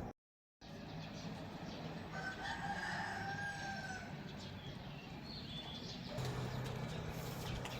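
One long drawn-out animal call lasting about two seconds, pitched and falling slightly at its end, over steady background noise; the sound cuts out completely for half a second at the start, and a low hum gets louder near the end.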